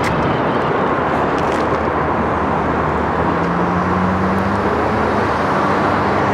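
Steady background noise of road traffic and vehicles, with a low engine hum that rises a little in pitch about three seconds in.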